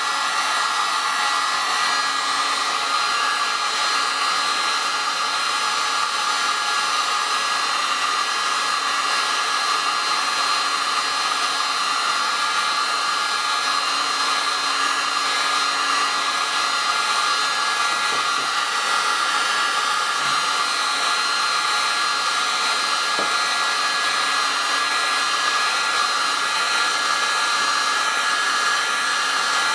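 Electric heat gun running steadily, blowing hot air to shrink heat-shrink tubing over the end of an LED neon flex strip: an even, unbroken rush of air.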